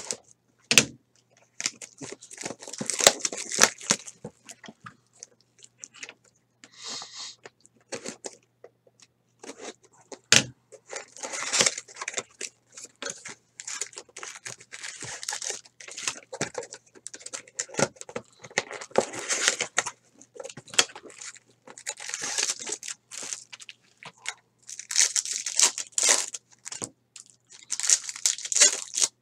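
A trading card box being unpacked and its shiny wrapped packs handled and torn open: irregular crinkling and tearing of the pack wrappers, with a few sharp taps.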